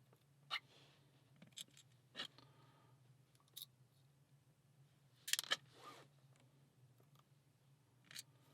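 Faint, scattered clicks and taps of small metal lock parts, the pins and springs of a disassembled pin-tumbler cylinder, being handled, a second or so apart with a short cluster about five seconds in. A low steady hum runs underneath.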